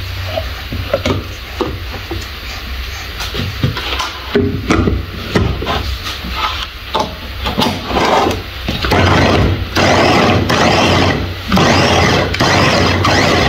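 Plastic lid and motor unit of a small electric food chopper clicking into place, then the chopper run in several short pulses, the last the longest, chopping tomatoes to a pulp.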